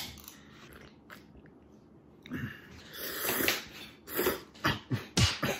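Ramen noodles being slurped in a string of short, noisy sucks, starting about two seconds in.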